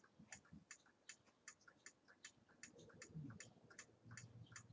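Clock ticking steadily and faintly, about two to three ticks a second.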